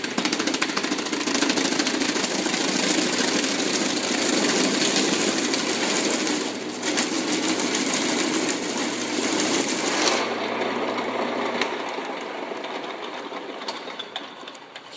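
Lathe spinning a rigid pink foam block while a medium gouge cuts it into a cylinder: a loud, steady scraping of the tool shaving the foam over the lathe motor's hum. The cutting noise stops about ten seconds in, and the motor hum ends soon after as the lathe winds down.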